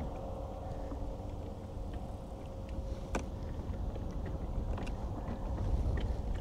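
Small fishing boat under way: a steady low rumble of water and wind, with a faint steady hum and a few light knocks, the sharpest about three seconds in.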